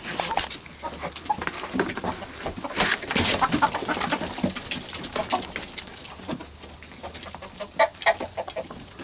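Chickens clucking in many short calls as they go after thrown scraps of hamburger.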